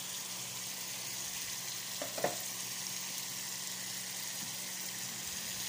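Red spice paste sizzling and bubbling in a non-stick frying pan on a gas burner, stirred at first with a wooden spatula. One light knock about two seconds in.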